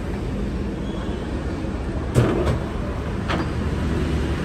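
Mazak manual engine lathe running steadily with a low mechanical hum, run-tested as very smooth and quiet. Sharp clicks and knocks from its control levers being shifted come about two seconds in, the first of them the loudest, and again just after three seconds.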